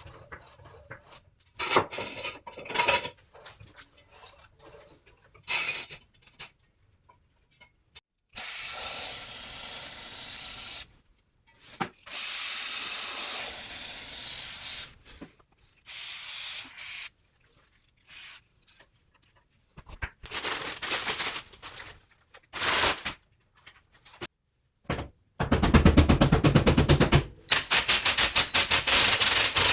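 Hand-tool work on a car's suspension: scattered clinks and scrapes, two long steady hisses, and, near the end, a loud run of rapid, even clicking like a ratchet wrench turning.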